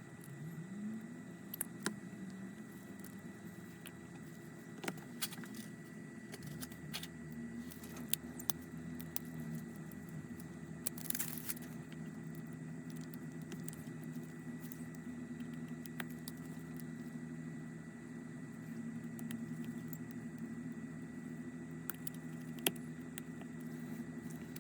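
Scattered small clicks and taps of hand tools and small parts being handled while an iPhone X's components are moved from the old screen, over a steady low hum, with one short scrape about eleven seconds in.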